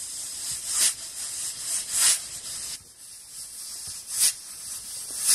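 Rough scraping strokes, four loud irregular ones over a softer hiss.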